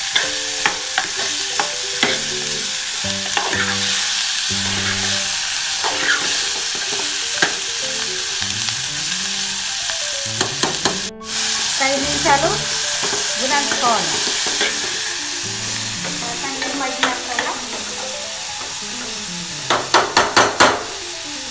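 Chopped cluster beans sizzling in hot oil in a metal pot while a spatula stirs them, with scattered scrapes and clicks against the pot. Near the end comes a quick run of about five knocks.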